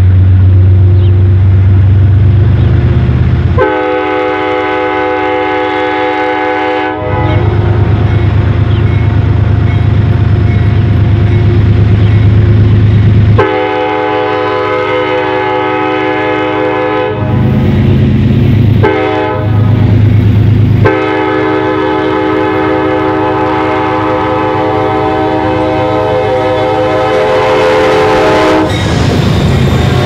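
Metro-North P32AC-DM diesel locomotive sounding its horn in three long blasts, the last about eight seconds long, over the steady low rumble of its V12 diesel engine as it approaches. Near the end the horn stops and the locomotive rushes past close by, engine and wheels loud.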